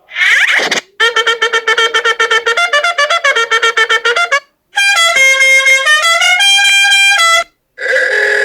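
Dubbed-in comedy sound effects: a quick swooping tone, then a brass-sounding tune of rapid repeated notes for about three seconds. After a short break come longer held notes stepping up and down in pitch, and another swooping tone near the end.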